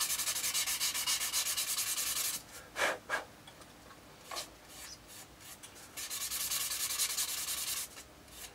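Sanding stick rubbed back and forth in quick, even strokes over the plastic fuselage of a 1:72 scale model kit, smoothing it down. The strokes come in two runs of about two seconds each, with a pause and a few single rubs between.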